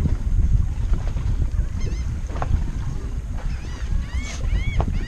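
Wind buffeting the microphone on an open boat, with a bird calling in a series of short rising-and-falling notes from about two seconds in, the calls coming quicker near the end. A few light knocks are mixed in.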